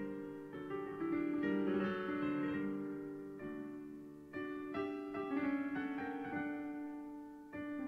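Slow background piano music: single held notes and chords that ring and fade, with new notes struck every second or so.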